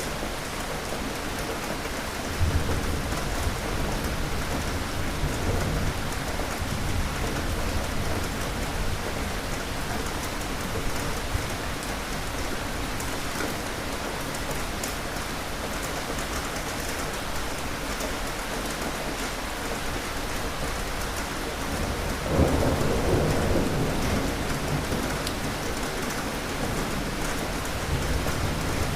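Steady heavy rain with thunder rumbling: a rumble starts about two and a half seconds in, and a stronger roll of thunder comes about three quarters of the way through and fades over a few seconds.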